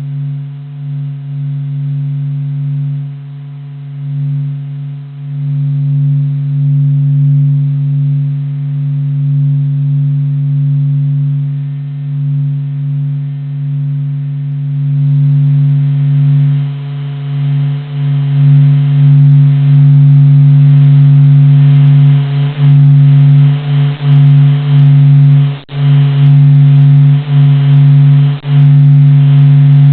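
A low, steady droning hum with a few held tones on top, presented as the sound of the Sun: a sonification of solar data. It swells louder partway through, with a few brief dips near the end.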